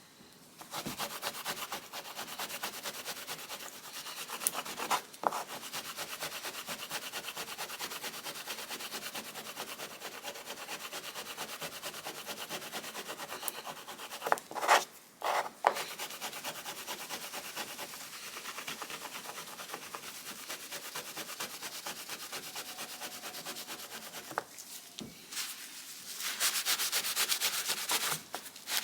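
Abrasive rubbing on wood, like sandpaper worked steadily over a surface. There are a few knocks about 5 and 15 seconds in and a short pause near 25 seconds, and the rubbing is louder near the end.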